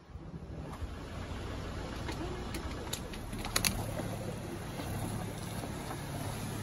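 Mahindra XUV300 SUV engine running slow and steady as the car creeps over landslide rubble, growing louder as it approaches. A few sharp clicks of stones under the tyres come from about two and a half seconds in.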